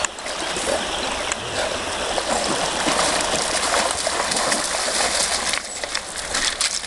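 River water rushing and splashing, a dense steady wash that drops off about five and a half seconds in, leaving quieter flowing water with scattered small splashes.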